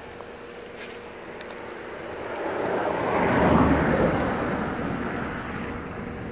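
A vehicle passing by: a broad rushing noise that swells to its loudest about three and a half seconds in and then fades away, over a faint steady hum.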